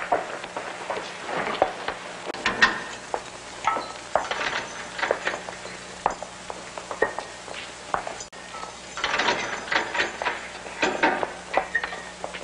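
Irregular clattering and scraping with occasional short ringing clinks, coming in dense bursts, over a faint low hum.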